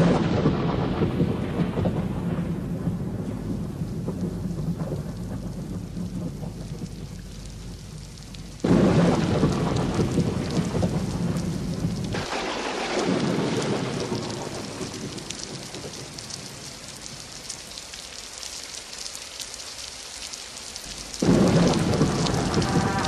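Thunderstorm: steady rain with claps of thunder, one rumbling away at the start, another breaking about nine seconds in and a third near the end, each fading slowly.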